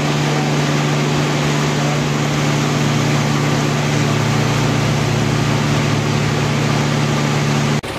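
Engine of a river cruise boat running steadily under way, a constant hum with an even hiss over it. It breaks off for an instant just before the end, and a lower engine note follows.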